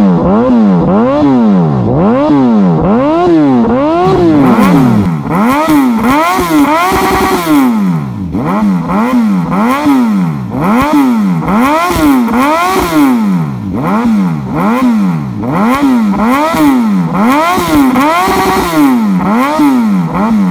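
Suzuki GSX-S1000's inline-four engine revved while standing still, breathing through a full aftermarket exhaust system with a Black Knight muffler. The throttle is blipped about once a second, and each time the pitch climbs quickly and falls back.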